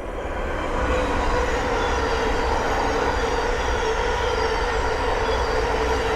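Thameslink Class 700 electric multiple unit passing close by on the main line. The rushing noise grows over the first second, then holds loud and steady with a constant whine.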